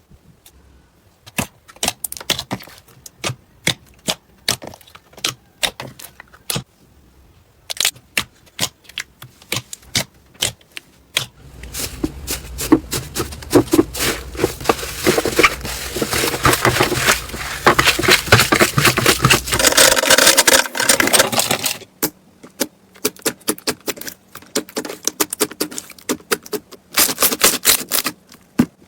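Slime being squeezed and pressed by hands, making sharp clicks and pops of trapped air. The pops come singly at first, run together into dense crackling for about ten seconds in the middle, then thin out to single clicks again.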